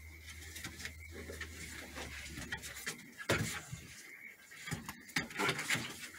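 Two Border Collie puppies play-fighting: short growls and yips with their paws scuffing on wooden deck boards, loudest about three seconds in and again near the end.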